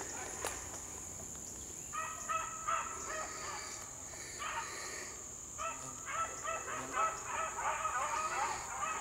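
A pack of beagles baying: many short, overlapping calls that begin about two seconds in, pause briefly, then come thick and continuous near the end.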